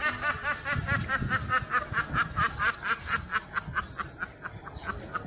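A group of young ducks calling in short, rapid repeated peeps, about five a second.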